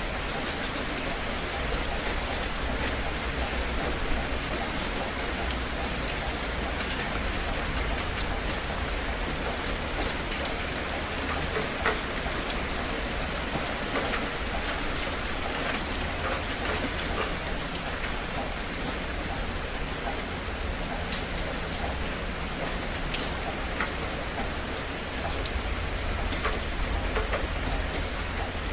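Steady heavy rain falling, with many sharp individual drop ticks over an even hiss and a low rumble underneath.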